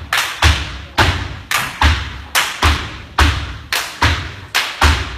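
Irish dance steps stamped on a wooden floor: loud heavy thumps with a short ring after each, about two a second in an uneven, syncopated rhythm.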